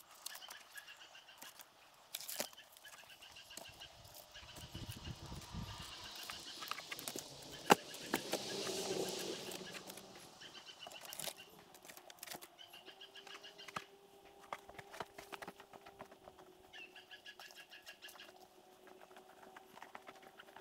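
Birds chirping in short, repeated high trills, with scattered sharp clicks and knocks throughout and a brief rustling swell about eight seconds in.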